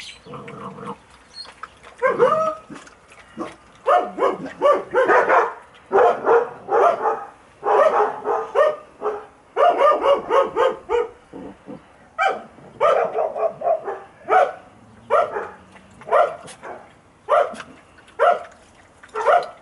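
Saarloos wolfdog puppies yipping and barking: short, high calls in quick runs and single yaps, repeated all through.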